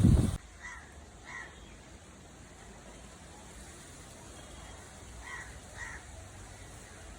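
Crows cawing: a loud harsh caw cuts off just after the start, then two short, fainter caws follow about a second in and another pair a little after five seconds in.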